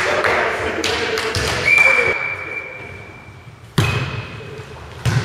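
Volleyball struck hard by hand just under four seconds in, a serve, then struck again about a second and a half later, each hit echoing around a large sports hall. Before the serve there are players' voices and a long steady high tone held for about two seconds.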